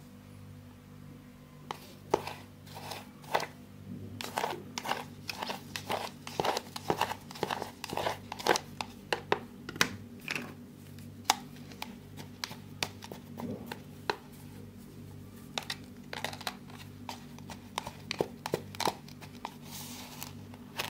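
Plastic knife cutting and scraping kinetic sand in a plastic tub: a quick, irregular run of short crunchy scrapes that starts about two seconds in, thickest through the middle and again near the end.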